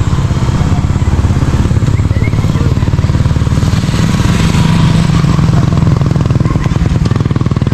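A small engine running steadily with an even, low pulsing, a little louder in the middle.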